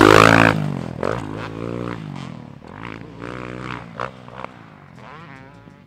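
Dirt bike engine revving up and down over a series of jumps, loudest at the very start and fading as the bike pulls away.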